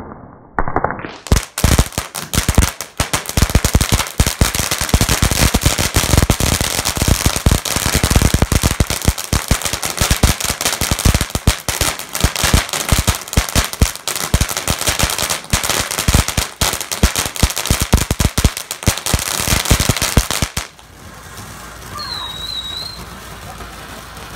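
A long string of firecrackers going off in a rapid, continuous run of sharp bangs for about twenty seconds, then stopping abruptly.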